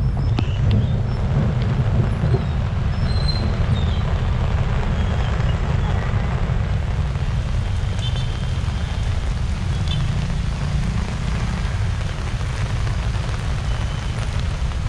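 Heavy typhoon rain pouring steadily onto a flooded city road, mixed with the low, steady noise of cars, a bus and motorcycles moving through the water.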